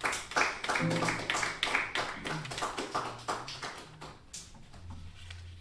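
A few people clapping by hand, the claps thinning out and fading away. A few low held notes sound under the clapping.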